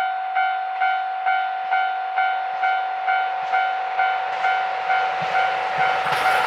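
Japanese level-crossing warning bell ringing steadily, about two strokes a second. Near the end the rumble of the approaching KiHa 261 series diesel train builds up, and the noise of it passing begins just before the end.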